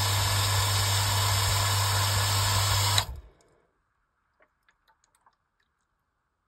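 Metabo electric water pumping station running with a steady low hum, then shutting off abruptly about halfway through with a click, as its pressure switch cuts out once the system reaches pressure. A few faint ticks follow.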